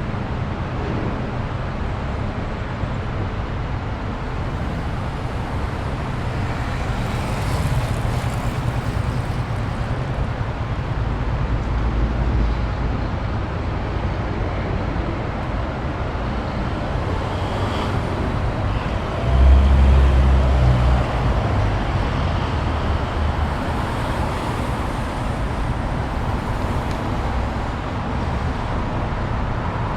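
Steady street traffic: a continuous rumble of passing road vehicles, with a louder, deeper rumble swelling about two-thirds of the way through as a heavier vehicle goes by close.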